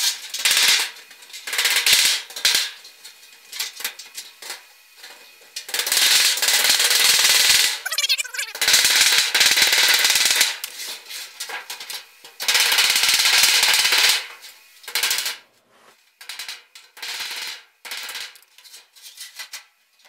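Hand hammer striking galvanized sheet metal, knocking down the folded edge of a plenum box top: several runs of fast blows with short pauses between, then scattered single blows in the last few seconds.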